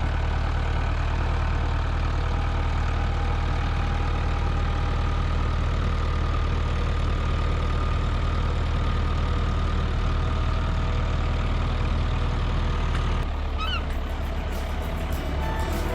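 Boat engine running steadily with a deep hum. About thirteen seconds in it drops away, and a few short rising chirps follow.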